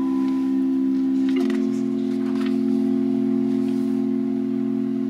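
Pipe organ playing on its soft flute stops: a sustained chord shifts about a second and a half in, a low bass note joins just after, and the full chord is then held steadily.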